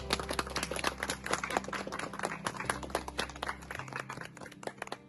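A small group of people clapping, a dense patter of hand claps that thins out near the end.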